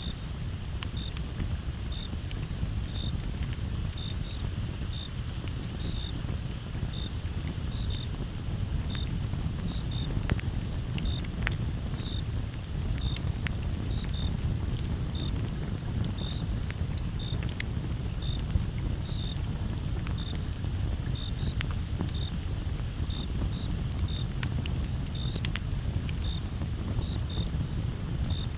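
Campfire crackling, with irregular sharp pops over a steady low rush. Behind it a steady high insect trill runs on, and a cricket chirps about once a second.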